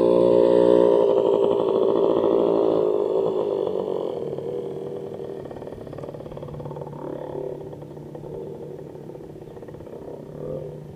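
Small propeller aircraft's engine drone, loud at first and fading away steadily over several seconds as the plane flies off.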